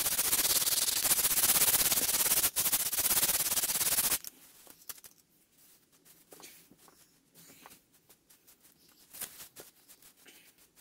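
120-grit sandpaper rubbed by hand over dried polyfiller on a wall: a loud, steady rasp of quick back-and-forth strokes. It stops abruptly about four seconds in, leaving only faint rustles and light taps.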